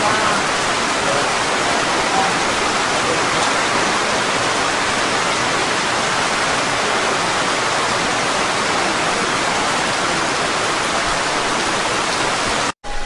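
Heavy rain pouring steadily, a dense even hiss of downpour hitting the pond's surface. It cuts out abruptly for a moment near the end.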